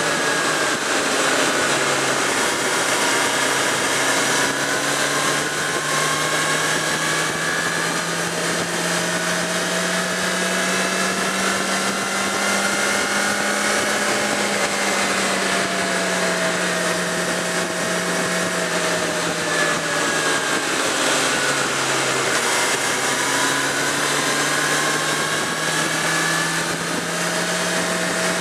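Suzuki GSX650F's inline-four engine running steadily at cruising speed. Its pitch rises and eases slowly with the throttle, under a steady rush of wind noise.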